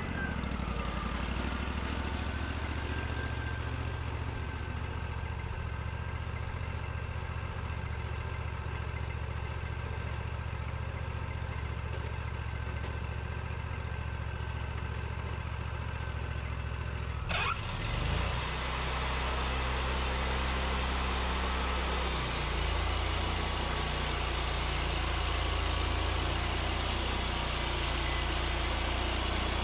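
Wood-Mizer LT40 Wide sawmill's engine running steadily between cuts as the sawhead travels back along the track, with a faint steady whine over it. Near the middle a short rising whine is heard, after which the engine note becomes fuller and steps up again a few seconds later.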